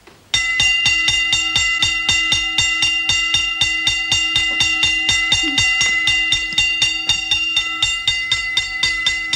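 Hand-cranked wall-mounted alarm bell ringing fast and steadily, about five or six strikes a second, starting a moment in and stopping just before the end. It is the alarm that calls prisoners to roll call.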